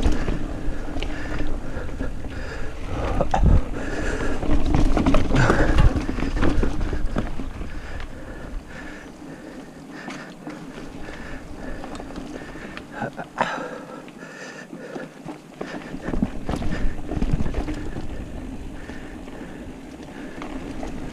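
Mountain bike ridden fast down a dirt singletrack: a rumble of wind and tyres on dirt, with scattered knocks and rattles from the bike over bumps. It is loudest for the first several seconds, eases through the middle and picks up again near the end.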